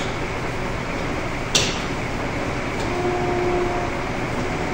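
The jet boat's automobile engine, taken from a 1974 Oldsmobile Cutlass, running steadily at idle. A sharp click comes about one and a half seconds in.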